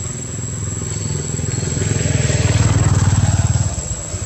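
A motor vehicle's engine passing close by, its low, evenly pulsing drone growing louder to a peak about three seconds in, then dropping away.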